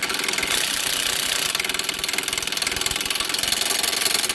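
Impact wrench hammering in rapid, even blows as it runs the nut down the new outer tie rod end's stud on the steering knuckle.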